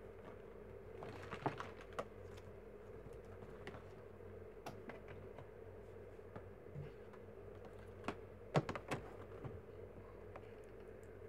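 Scattered light clicks and knocks from handling a lamp's cord and plug to switch on an extra light, over a steady low hum; a few quick clicks come close together near the end.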